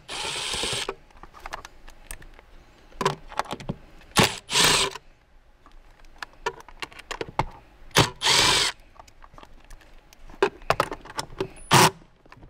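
Milwaukee Fuel cordless driver running in three short bursts, about a second at the start and shorter ones near the middle and later on, backing out T20 Torx screws from a Porsche's interior trim. Sharp clicks and taps come between the bursts.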